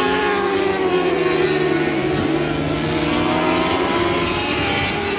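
Several Lightning Sprint (mini sprint) race cars racing on a dirt oval, their engines overlapping at high revs, the engine notes sliding down and rising again as the pack goes through a turn.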